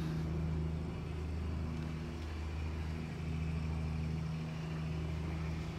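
Steady low drone of a 54-foot Cheoy Lee trawler's diesel engine running at cruising speed, heard inside the pilothouse. Its pitch stays the same throughout.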